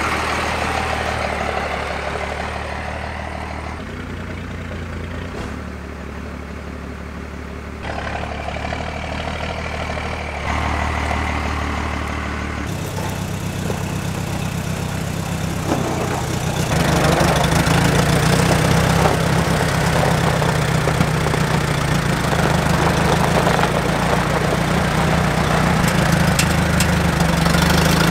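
Engines running steadily, the sound stepping abruptly in level a few times where the footage cuts. From a little past halfway it grows louder and fuller: an old farm tractor's engine running.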